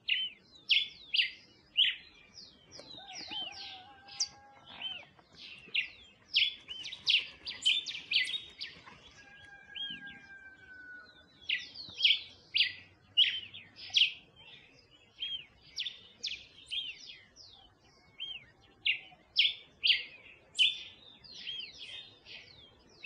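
Birds chirping busily: many short, sharp, high calls repeated several times a second, with a brief lull about ten seconds in and another near eighteen seconds.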